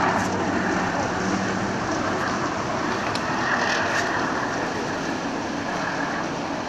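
Steady drone of a river cruise ship's engines and deck machinery passing below, slowly getting quieter.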